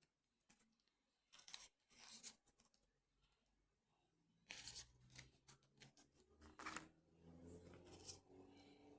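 Quiet, irregular crinkling and tearing noises in short clusters, with a pause in the middle and a faint low hum underneath from about halfway in.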